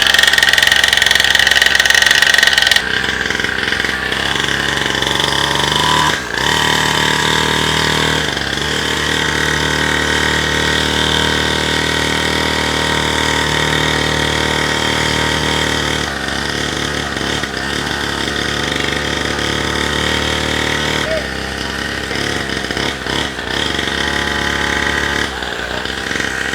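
Mini dirt bike's small single-cylinder engine running, its speed changing in steps several times, now starting and running well on its newly fitted carburettor.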